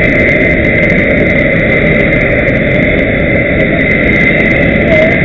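Large military transport aircraft's engines running steadily on the ground: a loud, even rumble with a steady high whine over it.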